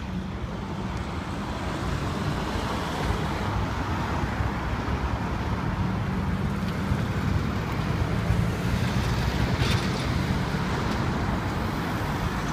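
Steady city road traffic: car and bus engines running and tyres on the road, with a constant low rumble.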